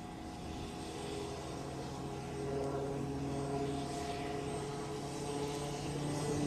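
Piasecki X-49A SpeedHawk compound helicopter in flight overhead: a steady drone of rotor, turbine and ducted tail propeller with a few held tones that shift slightly in pitch, getting somewhat louder as it goes.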